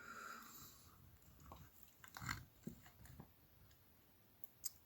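Near silence, with a few faint, brief clicks and small handling noises.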